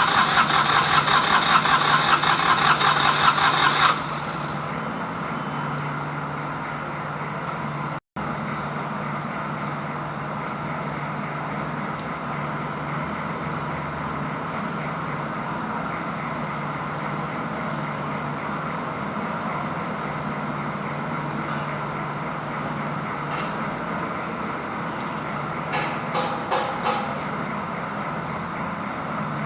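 Kubota D905 three-cylinder diesel engine running, loud with a fast rhythmic clatter for about four seconds, then dropping suddenly to a quieter, steady running sound for the rest.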